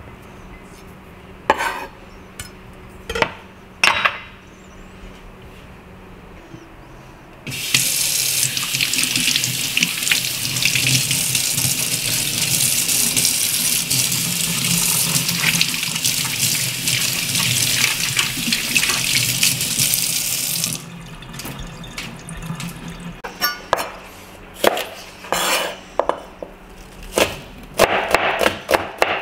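Kitchen sink tap running hard for about thirteen seconds, switched on and off abruptly, after a few single knocks. Near the end, a chef's knife chopping quickly on a plastic cutting board.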